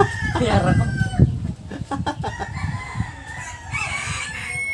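Rooster crowing in long drawn-out calls, with chickens clucking. A few sharp clicks come about two seconds in, from hands working a thin steel strap clamp.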